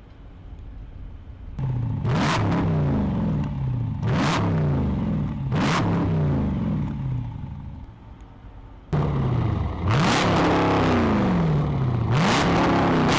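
2014 Jeep Grand Cherokee SRT's 6.4-litre HEMI V8 being revved through a newly installed aftermarket exhaust with a remote-controlled valve. It rises sharply and falls back about five times, three blips at first, then a short lull, then louder running with two more.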